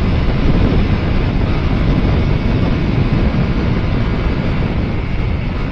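Steady wind rush buffeting the microphone of a motorcycle at highway speed, with engine and tyre noise underneath.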